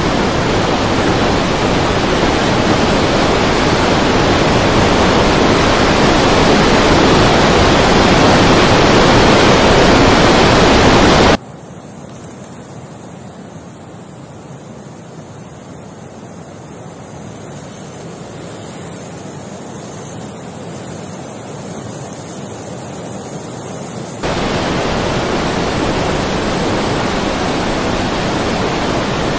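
Floodwater rushing in a torrent through a street: a steady, loud rush of water. About 11 seconds in it cuts abruptly to a much quieter steady noise, and about 24 seconds in the loud rush of water returns.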